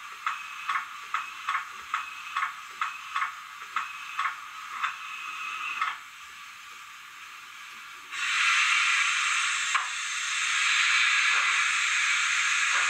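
Digital steam sound from a Zimo decoder in a Roco HO-scale BR52 steam locomotive model: regular exhaust chuffs, about two a second, that stop about six seconds in. A quieter hiss follows, then a loud steady steam hiss from about eight seconds on.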